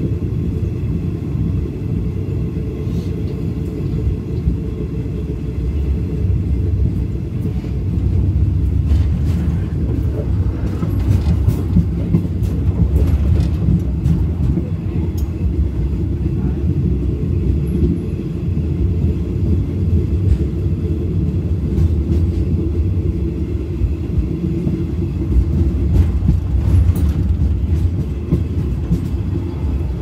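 Train in motion: a steady low rumble, with a few faint clicks scattered through it.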